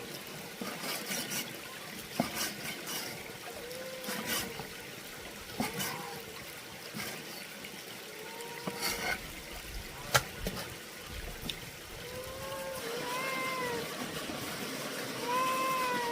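A cat meowing about six times in short calls, several of them in the last few seconds. In between come scattered clicks and knocks, the sharpest about ten seconds in, over running or splashing water.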